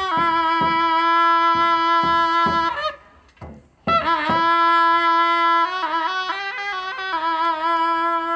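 Khasi traditional dance music: a shawm-like reed pipe (tangmuri) plays long held notes with wavering ornaments over drum beats about twice a second. The music breaks off for about a second roughly three seconds in, then picks up again.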